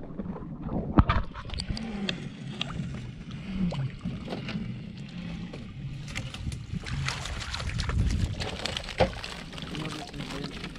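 Water sloshing and splashing around a small wooden outrigger fishing boat as plastic-mesh fish traps are handled at the side, with a sharp knock about a second in and another near the end.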